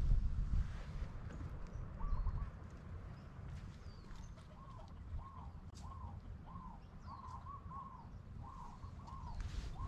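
A bird calling a run of short, arching notes, about two a second, from about four seconds in, over a low rumble.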